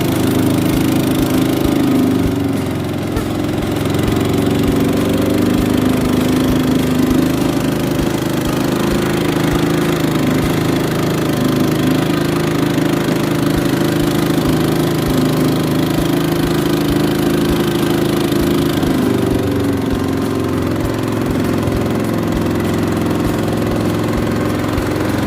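Engine of a small motorized river boat (perahu ketek) running steadily, with a slight dip in level about three seconds in.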